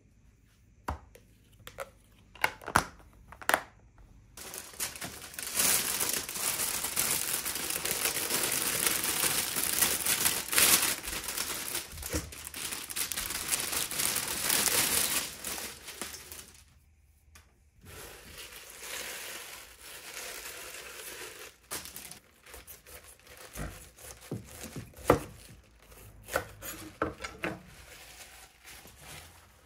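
A few sharp clicks of a food container lid being snapped shut, then a plastic bag crinkling loudly for about twelve seconds as greens are shaken out of it into a bowl. After a short pause, leaves of bomdong (Korean spring cabbage) are pulled off the head one by one, with soft rustling, tearing and crisp snaps.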